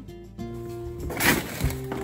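Background pop music with held notes, and a short noisy burst about a second in.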